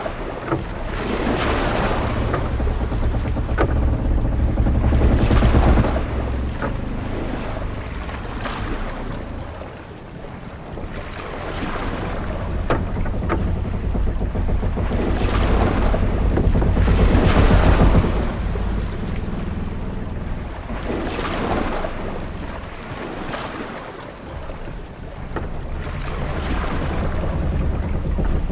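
Sea ambience aboard a sailing ship: waves washing against the hull and wind, swelling and ebbing every several seconds, with a deep rumble under each swell and a few short knocks in between.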